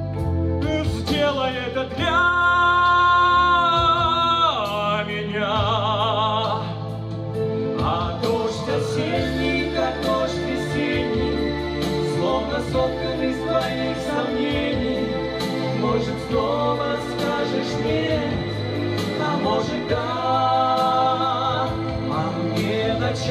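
A man and a woman singing a Russian pop ballad as a duet into microphones over an instrumental backing track, with a long held note with vibrato about two seconds in.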